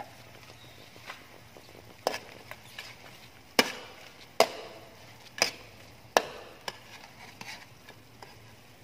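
A spatula knocking and scraping against a metal wok while stirring chicken pieces in liquid: a string of sharp clinks, each ringing briefly, loudest around the middle.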